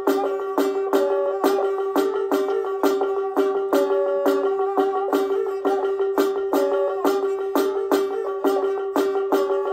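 Live instrumental music: a quick, repeating pattern of short, plucked-sounding notes, about three to four a second, over a steady held drone note.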